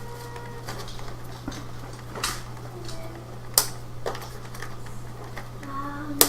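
Plastic toy parts clicking and tapping as small Transformers Rescue Bots figures are handled and transformed: scattered sharp clicks, the loudest about three and a half seconds in.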